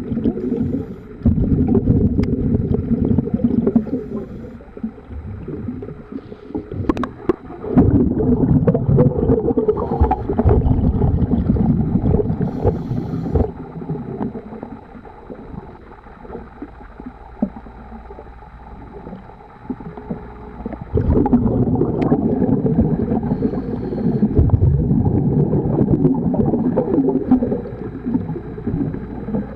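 Muffled underwater sound of a scuba diver's exhaled bubbles. Long, low rumbling bursts alternate with quieter breaks, with a few sharp clicks.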